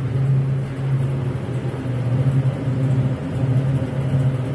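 Walk-in cooler's evaporator unit running, its two fans giving a steady, even hum.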